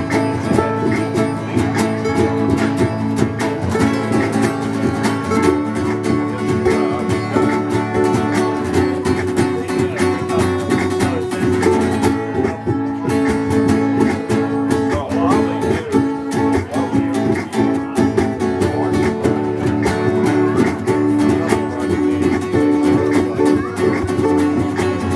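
Acoustic guitars played live together, strummed in a steady country-folk passage with no singing.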